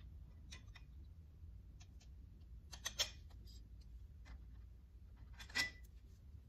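Steel brake brackets and bolts clicking and clinking against the rear axle flange as they are fitted by hand: scattered light clicks, a few louder ones about three seconds in, and one ringing metal clink near the end, over a low steady hum.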